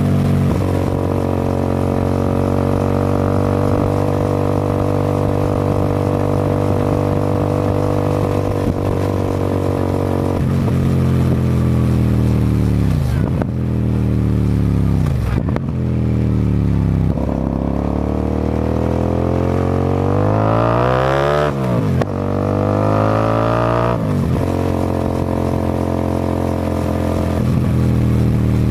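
2011 Hyosung GT250R EFI's 250 cc V-twin through a Musarri slip-on exhaust under way. It holds a steady note for several seconds, then drops in pitch as the throttle closes and rises again several times. Pops and crackles come from the exhaust as the revs fall. A long rising rev around two-thirds of the way through drops sharply at a gear change.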